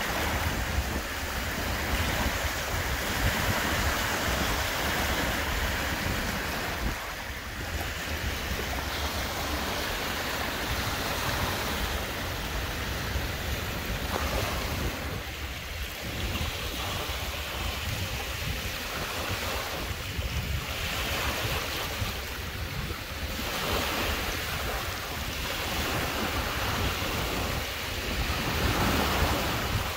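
Lake waves washing against a rocky shore, swelling and easing every few seconds, with wind buffeting the microphone in a steady low rumble.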